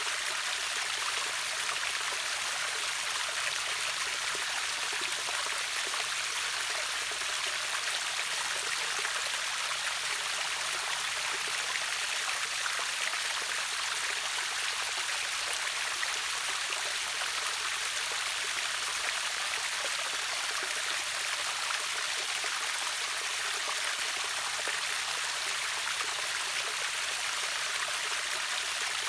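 Steady rushing and splashing of water from a river waterfall, an even hiss with no breaks.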